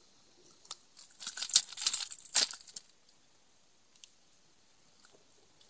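A quick click, then about a second and a half of loud, crinkling, scraping rustle close by, starting about a second in, with a sharp scrape near the end of it.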